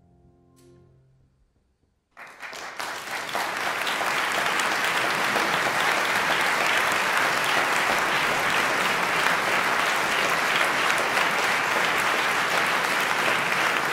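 A grand piano's last chord dying away, then concert-hall audience applause breaking out about two seconds in and quickly building to steady, sustained clapping.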